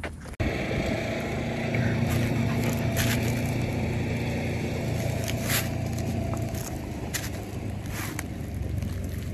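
A steady low mechanical hum, like a motor or engine running, with a few short sharp clicks over it.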